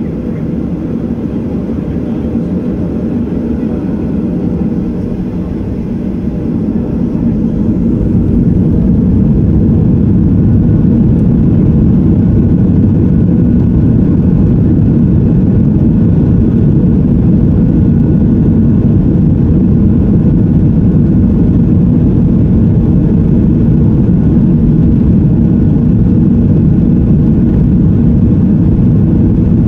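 Boeing 737-800's CFM56-7B jet engines spooling up to takeoff power, heard from inside the cabin over the wing: a deep rumble that builds over a few seconds starting about five seconds in, then holds steady and loud as the takeoff roll gets under way.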